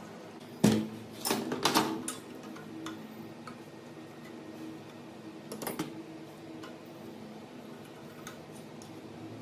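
Hard metal clinks and knocks from parts or tools being handled: a sharp one about half a second in, a quick run of them a second later, and two more near the middle, over a steady low hum.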